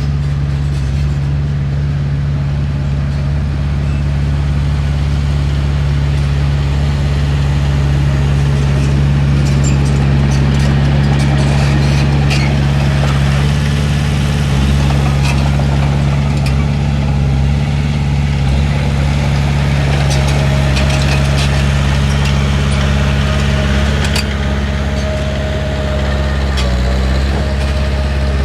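Heavy diesel engine of a bulldozer running steadily at a constant speed, with scattered sharp metallic clicks and knocks, the thickest about ten seconds in and one more near the end.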